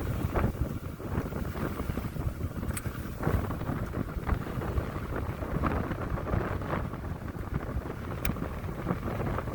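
Wind buffeting the microphone while a fat-tire e-bike rolls over a rough, wet dirt road, with a steady low rumble from the tyres and scattered knocks from bumps.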